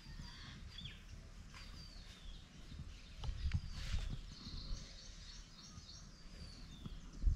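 Outdoor ambience: small birds chirping now and then over a low, uneven rumble.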